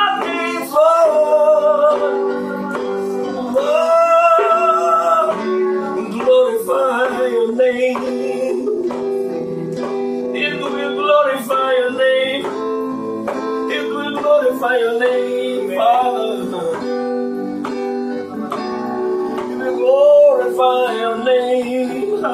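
A man singing slow, held, sliding vocal lines over sustained chords played on an electronic keyboard.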